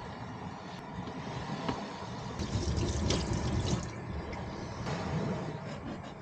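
Tap water running over parsley and a green pepper being rinsed in a stainless steel sink. The flow is louder from about two and a half to four seconds in, with a few small knocks.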